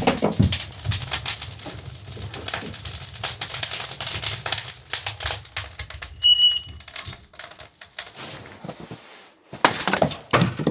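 Wood fire burning hard and crackling, a dense run of sharp snaps and pops. A brief high whistle sounds about six seconds in, and a few louder knocks come near the end.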